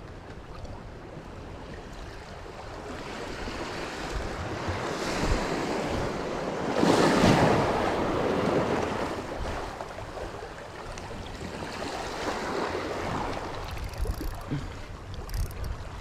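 Water washing against rocks in a strong wind. It swells to a loud surge a little before halfway through, and a smaller one comes later.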